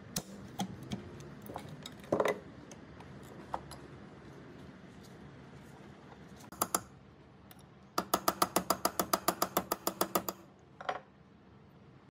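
Metal tools and a small metal part knocking and clicking at a cast-iron bench vise: scattered sharp taps, then a fast even run of about twenty sharp taps over about two seconds, and one last knock near the end.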